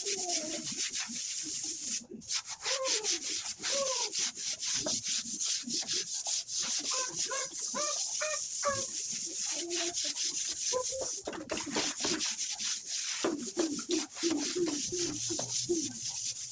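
Rapid, steady scrubbing strokes, several a second, with bird calls over them and a run of low repeated coos near the end.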